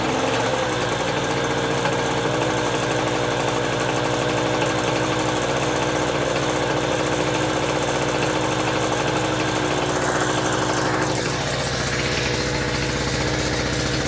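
Power Pro Technology 1000 W generator's small two-stroke engine running steadily, just after catching on a cold start with the choke on. Its note shifts slightly about ten seconds in.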